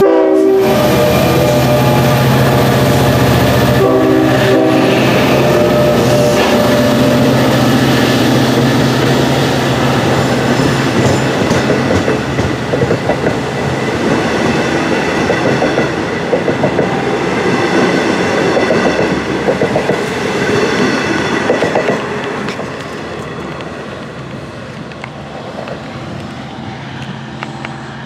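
Long Island Rail Road DE30AC diesel locomotive passing close by with its engine running loud, then its bilevel coaches rolling past with the clickety-clack of wheels over the rail joints. The sound drops off about 22 seconds in as the last car goes by.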